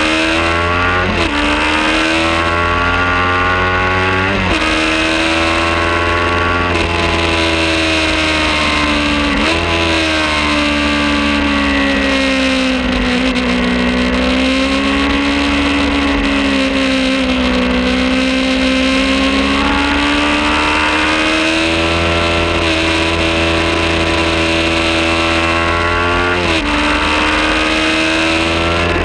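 Kawasaki Ninja 400 parallel-twin engine running hard on track, its pitch climbing and easing through corners, with several sharp breaks in pitch as gears change, about a second in, around four and a half seconds, near ten seconds and near the end. Wind rush underneath.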